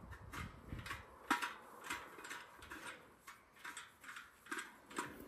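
Threaded metal leg being screwed by hand into a steel fireplace-grill: a run of short metallic clicks and scrapes, about two or three a second.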